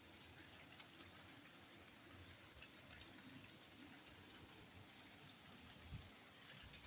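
Near silence: faint steady hiss of heavy rain falling, with a few small ticks and one sharper tick about two and a half seconds in.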